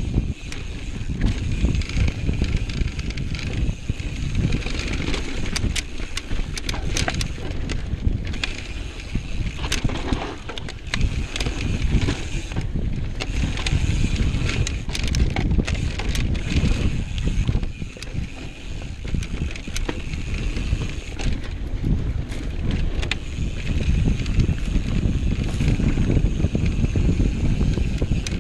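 Mountain bike riding down a rough dirt singletrack: wind rumble on the microphone and tyres on dirt and rock, with frequent sharp clicks and rattles from the bike jolting over bumps.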